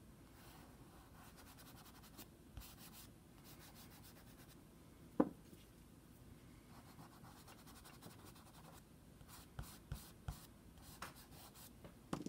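Soft chalk pastel stick scratching and rubbing faintly across toned paper as a stem is drawn in, with a few light knocks, the loudest about five seconds in and several more near the end.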